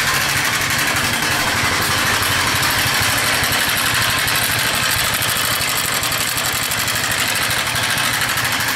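Viper Active scooter's four-stroke engine idling with a loud, steady clatter from the timing chain and valves. The chain tensioner is torn and the tensioners are worn out.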